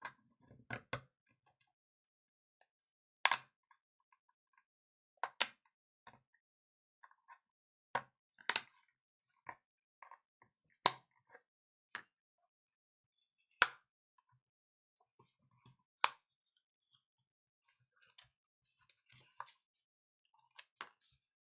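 Sharp plastic clicks and snaps, about eight of them a couple of seconds apart, with faint crackling between, as a pry tool works along the glued edge of a tablet to separate the screen from the frame.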